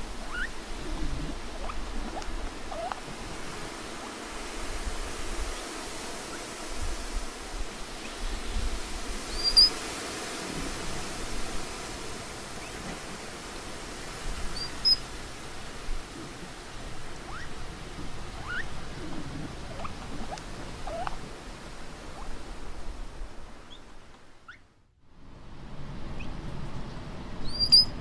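Patagonian mara calls: a few short, sharp high squeaks and brief falling squeaks scattered over a steady rushing outdoor background. The whole sound fades out briefly a few seconds before the end, then comes back.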